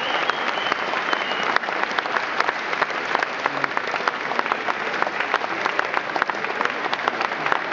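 Concert audience applauding: a dense, steady clatter of many hands clapping.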